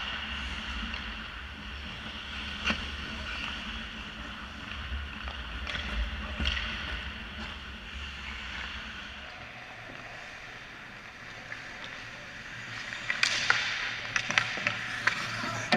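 Ice hockey on an indoor rink heard from behind the net: a steady scraping of skate blades on ice with the occasional sharp clack of sticks and puck, and a quick run of clacks near the end as play comes to the net.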